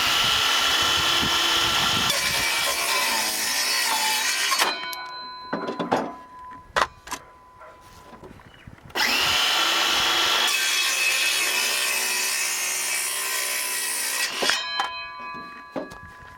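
ALDI Ferrex 18 V cordless circular saw cutting through wood twice, each cut about five seconds long, the motor's whine rising as it spins up and falling away as the blade coasts down. A few knocks between the two cuts.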